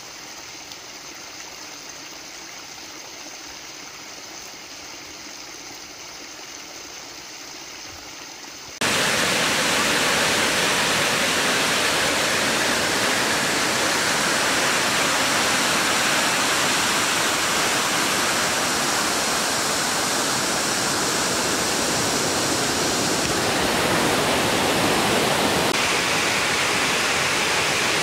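Running water: a small spout of water pouring steadily from a stone channel. About nine seconds in it cuts to a much louder, fuller rush of a forest stream cascading over rocks in a small waterfall.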